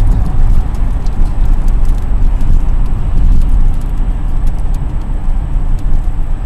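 Steady low rumble of road and engine noise inside a moving car's cabin at highway speed.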